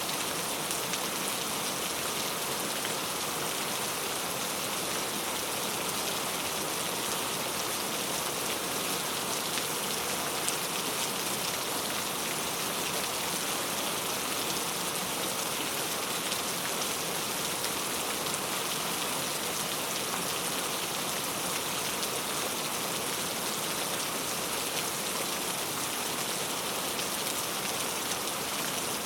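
Heavy rain falling steadily, a dense even patter of drops striking surfaces.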